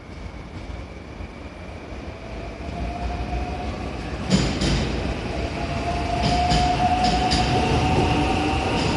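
JR West 521 series electric multiple unit pulling out and accelerating past, growing steadily louder, with a slowly rising motor whine. From about four seconds in, the wheels click over rail joints in quick pairs.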